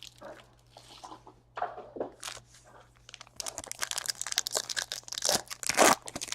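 A Panini Select basketball card pack wrapper being torn open and crinkled: a few soft rustles, then dense crackling from about three and a half seconds in, loudest near the end.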